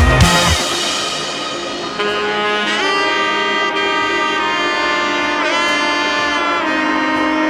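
Background music: a melody of long held notes, several of them bending in pitch, after a drum-heavy passage fades out in the first second.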